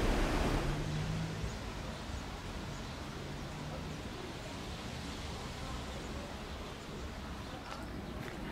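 Steady outdoor town ambience, an even low rush of distant traffic and air. A louder rushing noise dies away in the first second, and faint footstep ticks start near the end.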